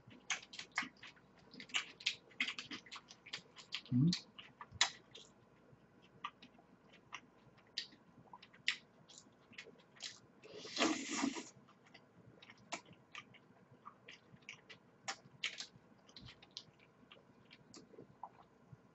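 A person chewing mouthfuls of macaroni and cheese close to the microphone, with many small sharp clicks of mouth and fork, and the fork scooping against the foil tray. A louder mouth sound lasting about a second comes about eleven seconds in.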